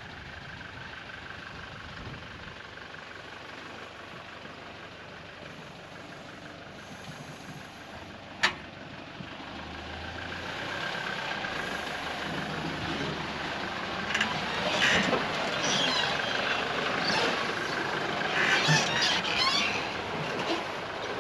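Toyota HiLux four-wheel drive driving slowly toward the camera through a sandy cutting: a steady engine and tyre noise that grows louder from about nine seconds in, with irregular crackling as it comes close. A single sharp click about eight seconds in.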